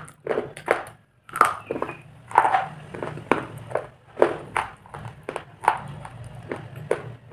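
Black slate being chewed close to the microphone: a run of sharp, gritty crunches, about two a second.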